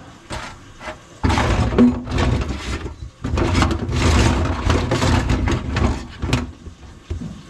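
Drain-clearing work at a kitchen sink clogged with grease: two long stretches of loud, uneven rattling noise with knocks, the first starting about a second in and both ending with a sharp knock near the end.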